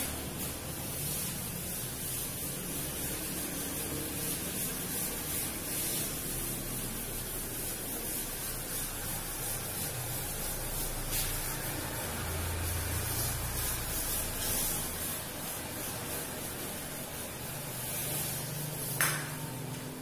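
Blackboard duster rubbing across a chalkboard in repeated wiping strokes, erasing chalk writing, with a single sharp knock near the end.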